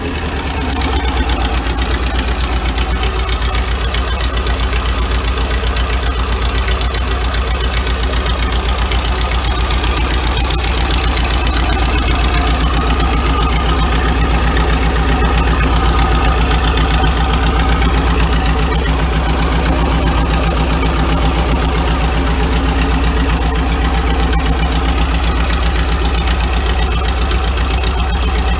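Air-cooled Porsche 2.0-litre flat-four with twin Weber 44 IDF carburettors, idling steadily with an even, rapid beat.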